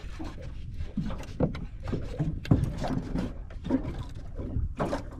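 Small aluminium boat drifting at sea: irregular knocks and water slaps against the hull over a steady low rumble, with one sharper knock about two and a half seconds in.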